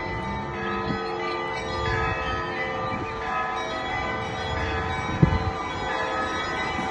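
Russian Orthodox church bells ringing, many bells sounding together in a continuous peal. A deeper bell strikes about every two seconds, loudest about five seconds in.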